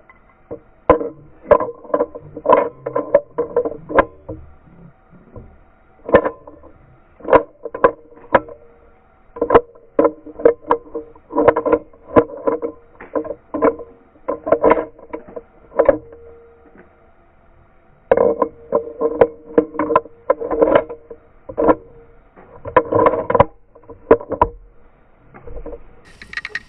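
A .375 bolt-action rifle being worked in a loading and unloading drill: many sharp metallic clacks and clicks of the bolt and rounds, coming in quick clusters with brief pauses, each with a short metallic ring.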